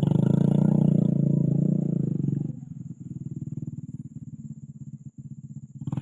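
Motorcycle engine running hard under throttle, then dropping back to a quieter low running about two and a half seconds in.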